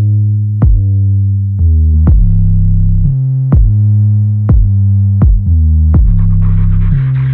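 Electronic background music: a drum-machine beat with a strong kick about every three quarters of a second under deep sustained synthesizer bass and chords.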